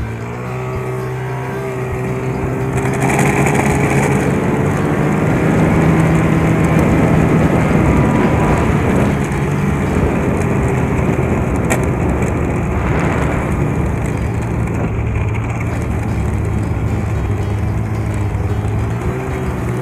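Snowmobile engine running while the sled travels along the trail. It swells louder a few seconds in, then settles to a steady run.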